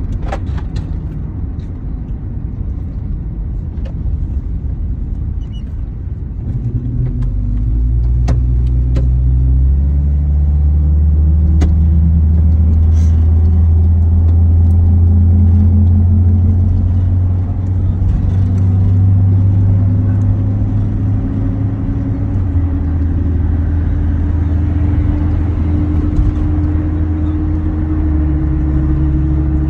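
A van's engine and road noise heard inside the cabin while driving, a low steady drone that gets louder a few seconds in and whose pitch climbs slowly over the last third as the van speeds up.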